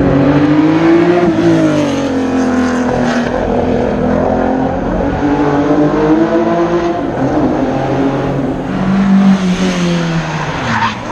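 Rally car engine at full throttle on a stage, its loud note rising and falling through the gears, with a sharp drop and pickup near the end.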